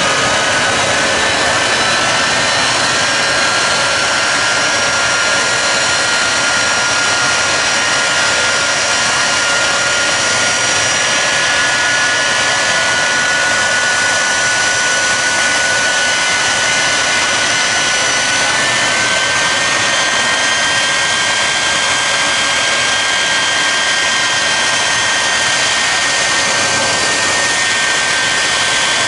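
Jet engines of jet-powered drag cars running on the starting line: a loud, steady rush with several high whines that slowly creep upward in pitch.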